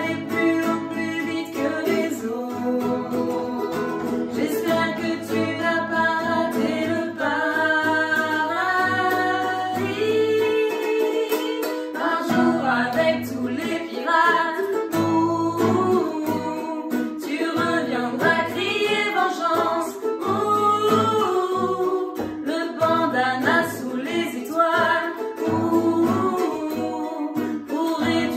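A ukulele and an acoustic guitar played together while women sing a song.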